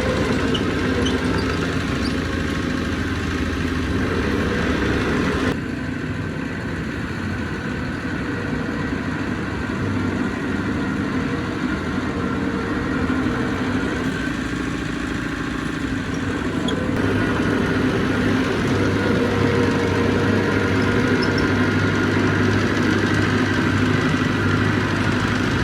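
Heavy diesel engine of earthmoving machinery running steadily, with the sound changing abruptly about five and a half and seventeen seconds in.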